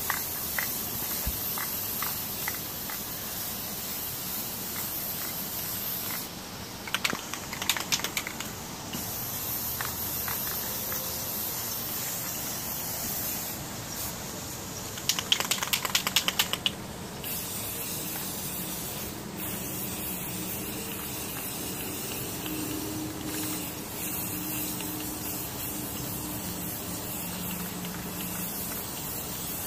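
Aerosol spray paint can hissing steadily as black paint is sprayed. The spray stops twice for a few seconds while the can is shaken, its mixing ball rattling quickly.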